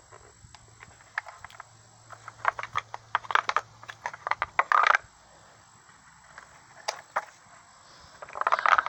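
Hand work on a chainsaw: a quick run of clicks and scrapes from small plastic and metal parts being handled and pried. After a pause there is a single click, then a louder scrape or rattle near the end.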